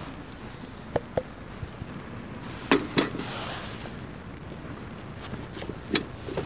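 Damp firewood crackling and popping in a small stainless steel fire box as fire starter is squeezed onto it: a few sharp cracks, two of them loud in the middle, followed by a short hiss.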